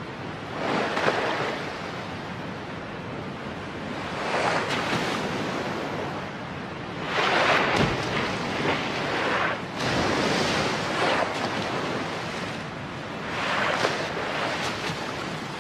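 Sea surface water washing and splashing, swelling into louder surges about every three seconds.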